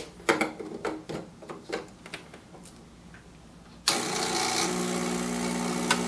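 Clicks and knocks as the portafilter is locked into the group head and glass cups are set on the metal drip tray. About four seconds in, the Lelit PL41TEM's vibratory pump switches on with a sudden steady hum as the espresso shot starts brewing.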